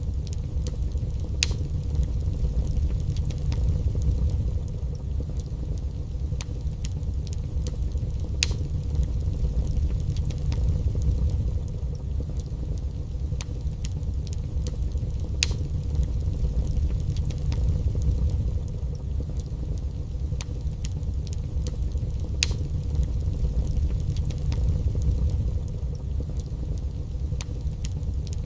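Wood fire crackling in a fireplace: scattered small pops and snaps, with a sharper pop roughly every seven seconds, over a steady low rumble.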